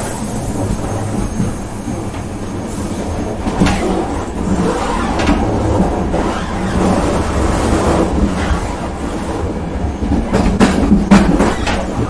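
Moving train running along the track: a steady low rumble with sharp wheel knocks, several of them close together near the end.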